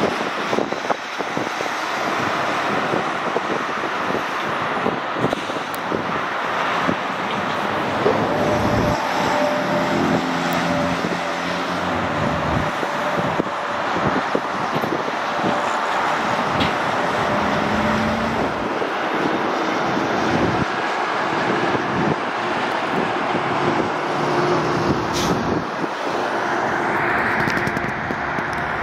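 Steady highway traffic noise from cars and trucks passing, with a faint engine tone that comes and goes around the middle.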